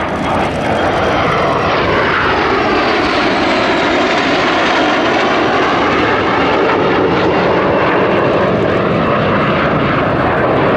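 Two Dassault Rafale C fighters' twin Snecma M88 turbofan engines, loud steady jet noise as the pair passes, swelling up about half a second in. A sweeping, phasing tone falls and rises through the noise as the jets fly by.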